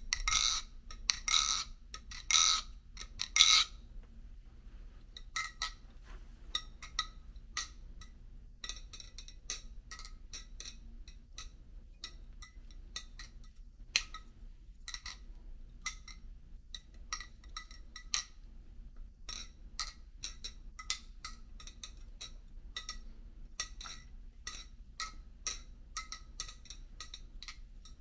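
Serif balisong being flipped: the blade and handles click and clack against each other in quick, irregular runs, each hit ringing briefly. The loudest clacks come in the first few seconds.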